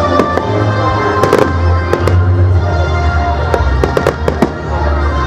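Fireworks going off: sharp bangs and crackles, bunched in quick clusters about a second in and again around four seconds. Music with a heavy bass plays throughout.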